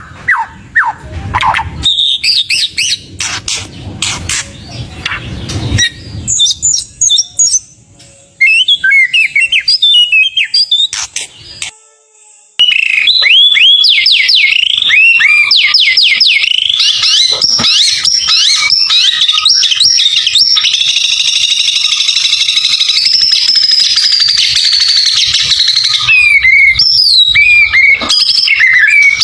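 White-rumped shama singing: sharp clicking notes and short chirps at first, then, after a brief pause about twelve seconds in, a loud unbroken run of fast, repeated whistled phrases. The song is packed with varied mimicked phrases ("full isian").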